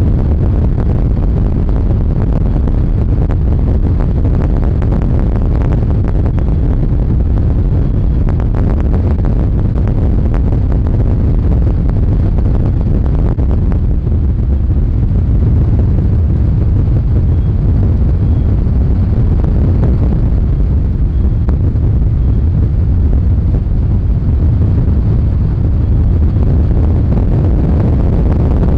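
Fiberglass bass boat running at speed: a steady, loud low rumble of wind buffeting the microphone mixed with the outboard motor and the hull on the water, with faint short knocks of the hull for a few seconds about a quarter of the way in.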